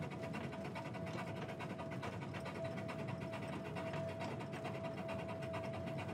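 Steam train running along the track: a fast, even mechanical clatter with a steady tone held over it.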